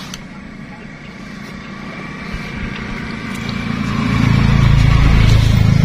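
A motor vehicle passing on the road. Its engine noise grows steadily louder over several seconds and is loudest near the end.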